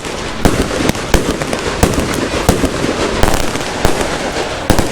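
Fireworks going off: loud, irregular bangs, a couple a second, over continuous crackling.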